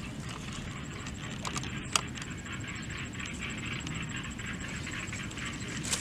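Steady outdoor background noise, with a faint, evenly pulsing high tone and one sharp click about two seconds in.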